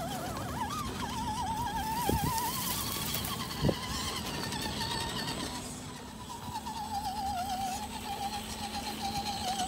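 Whine of an RGT EX86100 RC rock crawler's electric motor and gearing as it crawls over brush and grass, a thin tone that wavers up and down in pitch as the load changes. A couple of short knocks about two and three and a half seconds in.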